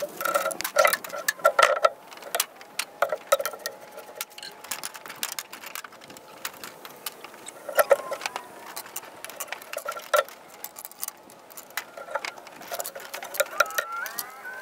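Kiln-dried oak boards and thin wooden stickers clacking and clattering as they are handled and stacked: an irregular run of sharp wooden knocks, busiest in the first two seconds.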